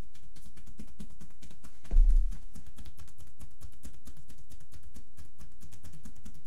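Percussive massage (tapotement): hands with palms loosely joined strike the bare shoulders and upper back in a rapid, even patter of dull thuds, many a second. A louder low thump about two seconds in.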